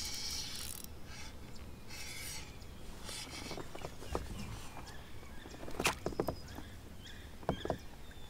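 Faint birds chirping over quiet river ambience, with a few sharp clicks and knocks of fishing gear being handled on a kayak, the loudest about six seconds in. A hiss in the first second dies away.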